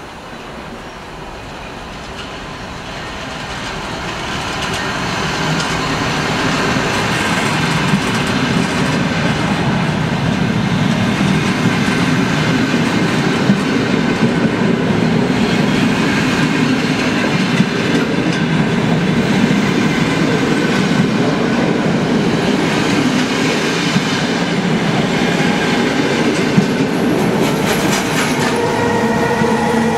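Trenitalia regional passenger train of coaches rolling past on the rails, its rumble growing louder over the first few seconds and then holding steady, with scattered sharp wheel knocks. Near the end the electric locomotive at the rear of the train comes by and some tones join the rumble.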